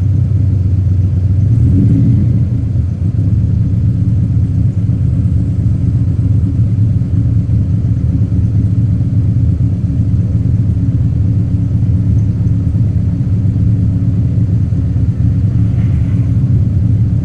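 TVR Cerbera 4.5's V8 engine running with a steady deep rumble, swelling briefly about two seconds in.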